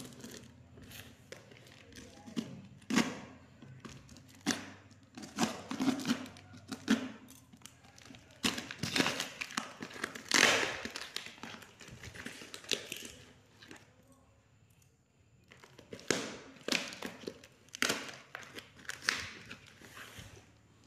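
Plastic wrapping and packing tape being crinkled and torn off a cardboard parcel by hand, in irregular bursts of rustling and ripping with a quieter pause about two-thirds of the way through.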